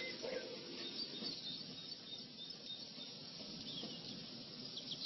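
Faint birds chirping in the background, a few short calls, with a quick run of chirps near the end.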